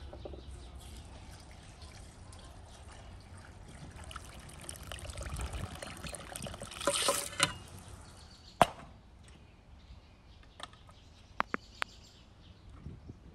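Liquid pouring and trickling, strongest around six to seven seconds in, then a single sharp knock and a few light clicks.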